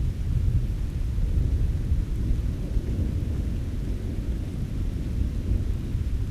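Thunderstorm sound effect: a steady, low rumble of thunder under a faint hiss of rain, slowly easing off.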